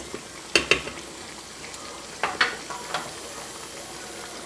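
Chicken curry sizzling steadily in an earthenware pot, with a few light knocks against the pot, in pairs about a second and two seconds in.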